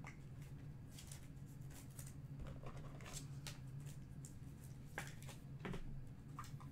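Trading cards being slid into plastic sleeves by hand: faint scattered rustles and light clicks over a steady low hum.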